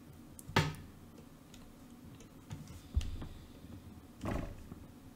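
A few quiet clicks and taps of a stylus on a drawing tablet while a shape is drawn, with a low knock about three seconds in and a brief puff of noise near the end.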